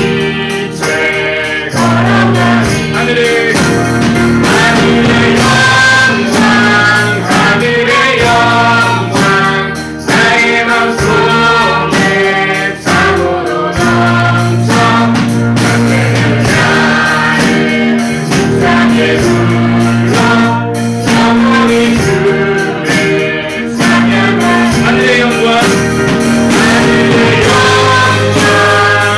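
A live praise band performing a Korean gospel song. Female and male voices sing over electric keyboard, acoustic guitar and drums.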